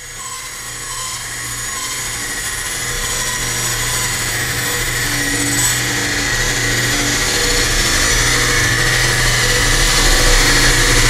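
Bandsaw running and cutting through a wooden decoy head blank: a steady motor hum with a whirring blade, growing gradually louder.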